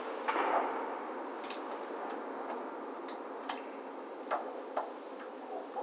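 Footsteps of people walking along a warship's interior corridor: about half a dozen sharp, irregular clicks and taps over a steady background hiss.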